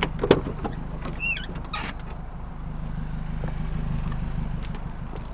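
Car engine idling with a steady low hum, with scattered clicks and knocks and a short wavering squeak about a second in.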